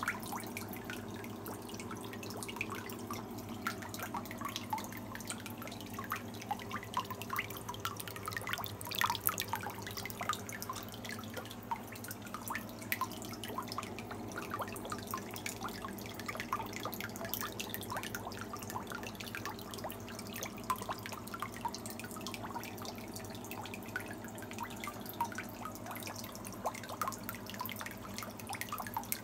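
Water dripping and trickling into a fish-rearing tank, with many small, irregular splashes over a steady low hum of running equipment.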